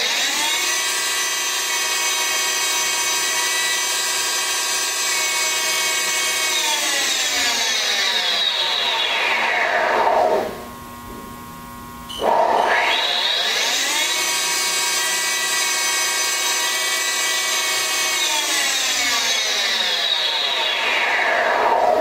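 Haas TL-3 CNC lathe spindle running at about 1,000 rpm with a steady multi-tone motor whine, then winding down with falling pitch to a stop about ten seconds in. After a short pause it spins quickly back up to the same pitch, runs steady, and winds down again over the last few seconds.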